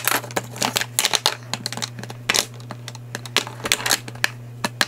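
Plastic lipstick and liquid-lipstick tubes clicking and clattering against a clear acrylic organizer tray as they are picked up and set back down in a new order, in quick irregular taps.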